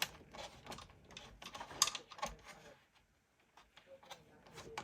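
Irregular light clicks and knocks of hand tools and flat-pack furniture parts being handled during assembly, with a short pause about halfway through.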